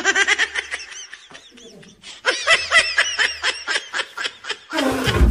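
Laughter: two runs of quick, rhythmic ha-ha pulses, the second starting about two seconds in. Near the end a loud, noisy burst cuts in.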